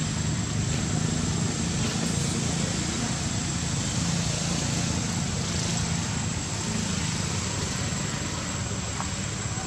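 Steady low engine-like hum with a constant thin high-pitched whine above it.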